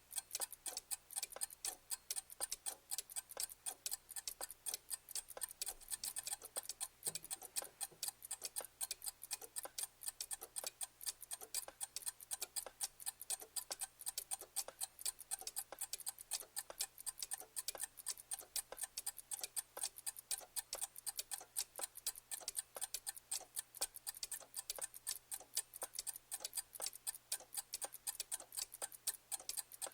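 Clock ticking steadily, with rapid, even ticks several times a second.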